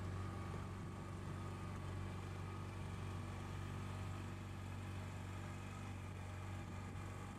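Outboard motor of a small open boat running at a steady cruising speed, an even low drone.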